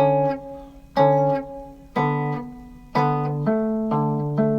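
Guitar fingerpicked slowly, playing only the top melody notes pinched together with a bass note on the 5th string. The notes come about once a second and ring on, then quicken in the last second or so.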